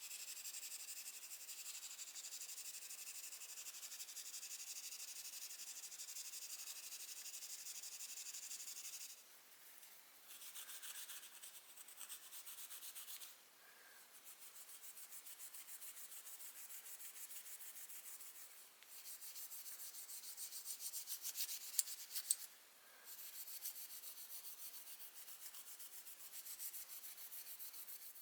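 Superfine steel wool rubbed quickly back and forth over a plastic screwdriver handle: a faint, hissy scrubbing in several spells with short pauses between them.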